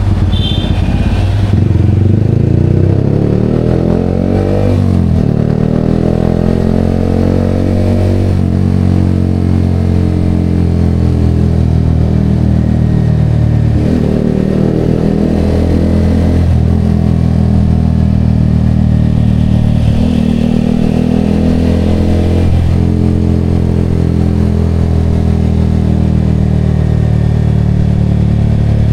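Yamaha XSR motorcycle engine breathing through an aftermarket Vmax canister exhaust, pulling up through the gears. The pitch climbs and then drops sharply at each shift, about six times.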